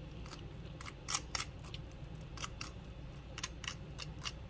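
Metal fork spreading mashed avocado across crisp toast: a string of about a dozen short, irregular scratchy scrapes as the tines drag over the toast.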